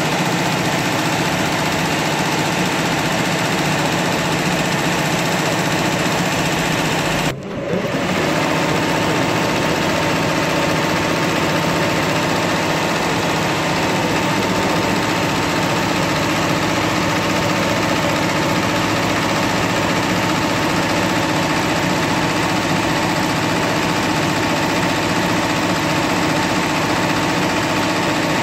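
Tajima multi-needle embroidery machine running steadily as its needles stitch into fabric. The sound breaks off briefly about seven seconds in.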